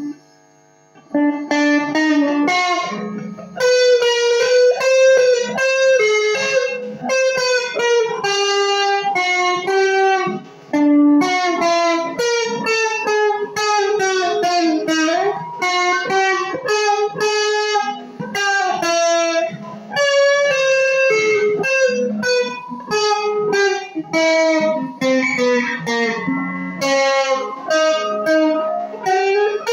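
Stratocaster-style electric guitar playing a single-note melody of sustained notes with string bends, starting about a second in.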